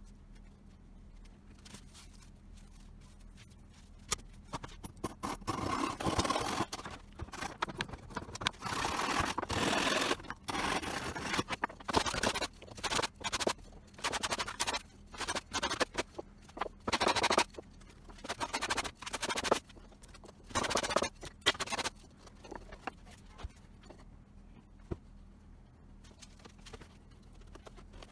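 Irregular scraping and rubbing in short, uneven bursts, starting a few seconds in and dying away near the end.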